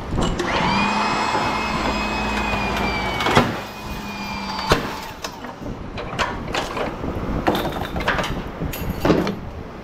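A steady mechanical whine lasts about four seconds and ends with a sharp knock, followed by scattered sharp knocks and clicks.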